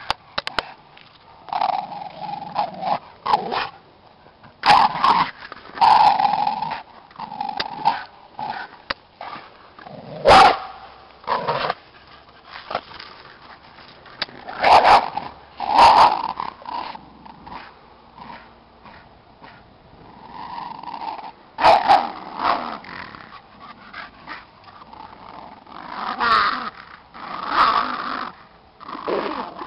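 Two dogs growling and barking in irregular short bursts while play-fighting over a ball: one dog guarding its ball from the other.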